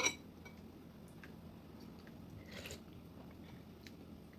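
A person chewing a mouthful of food, faint, with a short sharp click right at the start.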